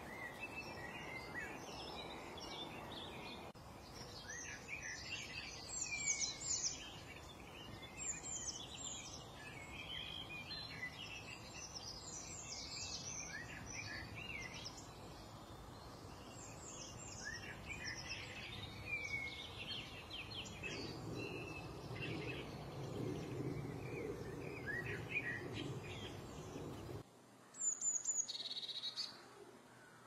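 Many small birds chirping and singing in quick, overlapping high calls over a steady background hiss. Near the end the hiss cuts off abruptly and only a few short, high calls follow.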